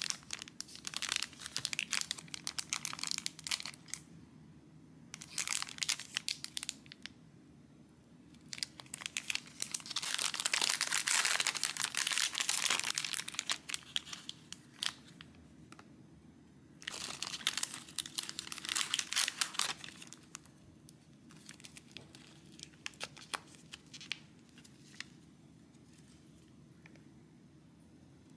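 Foil-lined plastic wrappers of collection-card gummy packs crinkling as they are handled and torn open, in several bursts of crinkling, the longest and loudest about ten to thirteen seconds in. Near the end only light plastic taps and rustles.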